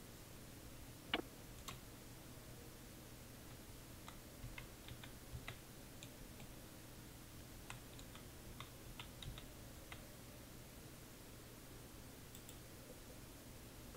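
Faint keystrokes on a computer keyboard as a short phrase is typed, a string of light clicks over a low steady hum, with one louder click about a second in.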